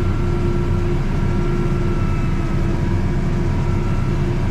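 Tractor engine running steadily under load while a grain bag is filled, a low drone with a steady whine over it.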